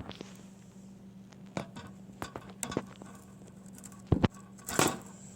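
Scattered light clicks and knocks of objects being handled, with a heavy thump about four seconds in and a short rustling burst just after it, over a steady low hum.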